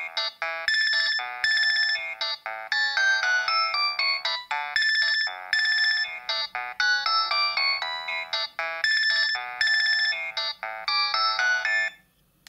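Nokia 7250i mobile phone playing a ringtone: a fast, bright electronic melody of short notes, stopping shortly before the end.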